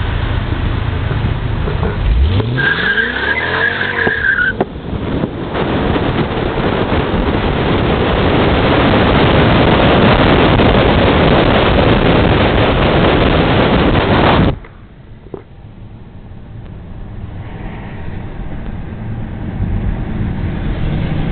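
Mercedes-Benz CL55 AMG's supercharged 5.4-litre V8 idling, then revving up hard as the car launches from a standstill, with a tire squeal about two to four seconds in. A loud rush of wind and road noise follows as the chasing car speeds after it, cutting off suddenly about two-thirds through to quieter cabin noise.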